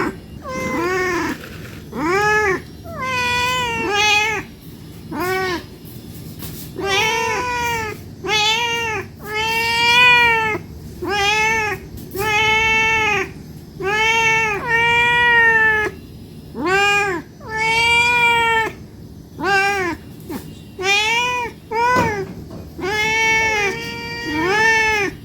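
A hungry domestic cat meowing over and over to be fed. It gives about two dozen arching meows, roughly one a second, each with only a short gap before the next.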